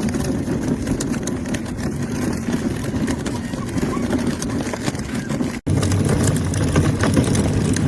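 Hard plastic wheels of a toddler push car rolling over pavement, a steady rumble. It cuts off abruptly about five and a half seconds in and picks up again slightly louder.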